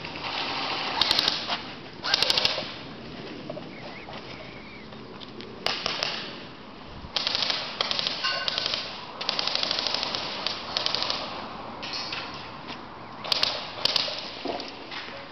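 Airsoft guns firing rapid full-auto bursts. There are several bursts of about half a second to a few seconds each, made of fast, sharp clicks, with short pauses between them.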